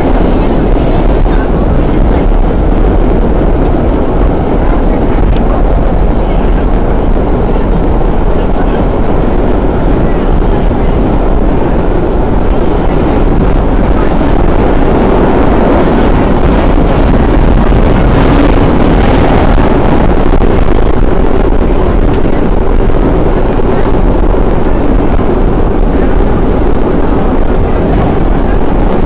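Vintage IND R1/9 subway car running at speed, heard from inside: a loud, steady rumble and clatter of wheels on rails that grows a little brighter and louder for a few seconds around the middle.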